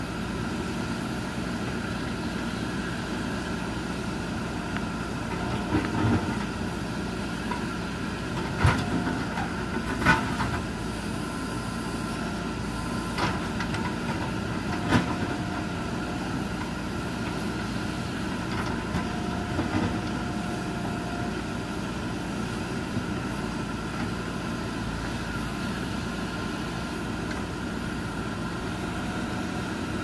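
JCB backhoe loader's diesel engine running steadily while the backhoe digs, with a handful of sharp knocks, loudest about nine and ten seconds in, as the bucket strikes concrete and rubble at the old culvert. Two brief whines come in around the middle.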